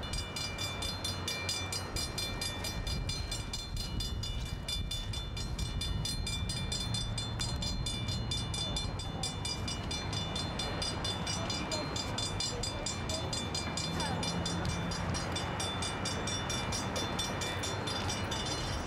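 Railroad grade-crossing warning bell ringing steadily in rapid, evenly spaced metallic strokes, over a low rumble.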